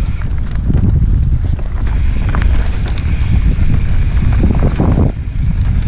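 Wind rumbling on a helmet-mounted action camera's microphone as a mountain bike rolls down a dirt trail, with scattered rattles and knocks from the bike going over bumps.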